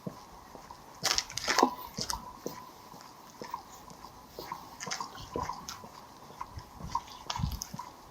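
Footsteps crunching on a gritty seafront path, about two steps a second, with a louder run of crunches between one and two seconds in.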